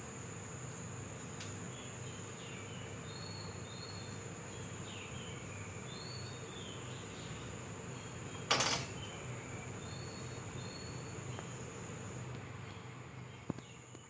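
Steady high-pitched insect drone with scattered short bird chirps. About eight and a half seconds in comes one sharp knock of the knife on the wooden cutting board, and a lighter click near the end.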